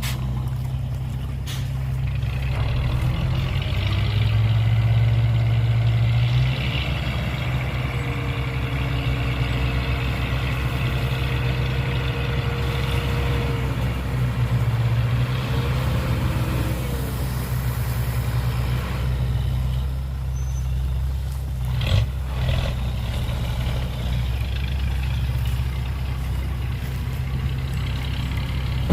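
Heavy dump truck engine running steadily, with a steady whine for several seconds in the middle and a brief sharp knock about two-thirds of the way in.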